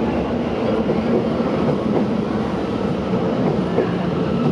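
Medellín Metro electric train moving alongside an elevated station platform, a steady rolling rumble with a low electric hum.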